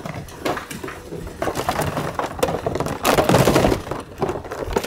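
Hollow plastic goose decoys clattering, knocking and scraping against each other as they are carried and loaded, with a louder stretch of rattling about three seconds in.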